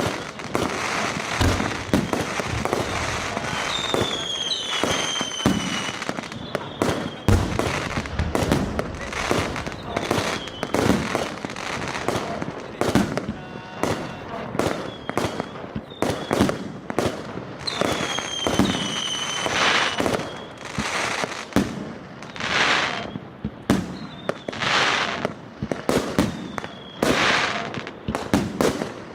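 FP-B418 100-shot firework battery firing in rapid succession: a dense, continuous run of bangs and crackles. Falling whistles sound twice, about four seconds in and again near eighteen seconds, and hissing swells rise between the bangs near the end.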